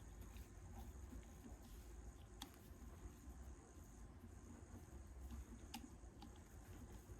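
Near silence: faint, steady, high-pitched cricket chirring, broken off briefly about four seconds in, with three faint sharp clicks.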